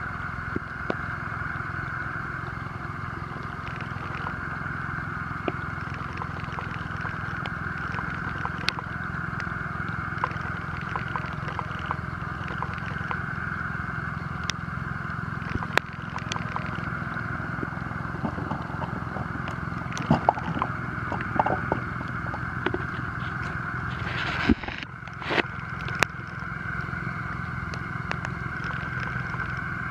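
Steady drone of a motor, with scattered light clicks and scrapes from a fishing net being handled in a wooden boat, and a short cluster of louder knocks near the end.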